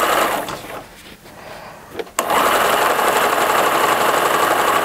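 Pfaff sewing machine stitching a seam through layers of fabric. It stops about half a second in and starts again a second and a half later with a sharp click, then runs steadily.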